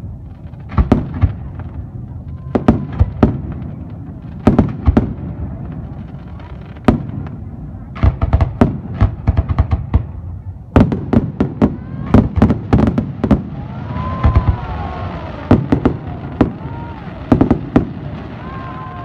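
Fireworks display: a continuous run of loud aerial shell bangs, many in quick clusters, over a rumbling, crackling background.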